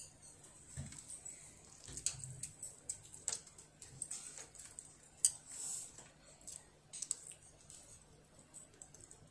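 Chopsticks tapping and scraping on a plate as a child picks up and eats rice: scattered light clicks, with a sharper tap about five seconds in, over a faint steady hum.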